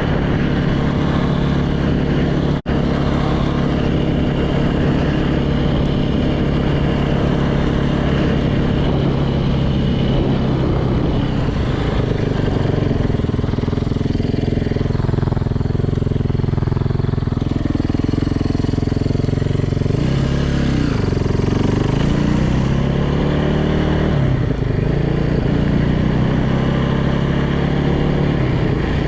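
Yamaha YZ450F's single-cylinder four-stroke engine running on the move, holding steady revs at first, then rising and falling in pitch through the middle of the stretch as the throttle is opened and closed.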